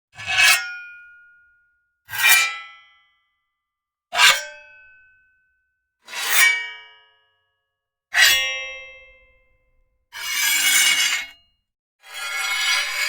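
Sharp metal blade slice sound effects recorded up close: five short slices about two seconds apart, each with a metallic ring that dies away. They are followed by two longer scraping slides of metal blade on metal, the second running on past the end.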